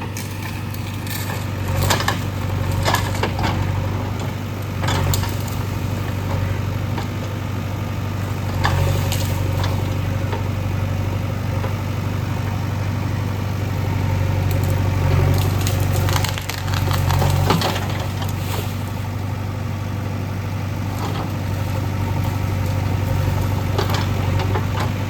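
JCB 3DX backhoe loader's diesel engine running steadily, with scattered cracks and crunching knocks as it works through the ground and debris. The engine grows louder in a few short spells.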